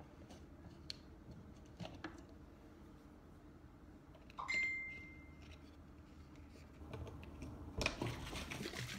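Plastic water bottle of lemon pieces, sugar and water being capped, with a few small clicks and a short high squeak as the screw cap is twisted on. About seven seconds in the bottle is shaken vigorously, the liquid and lemon pieces sloshing to dissolve the sugar.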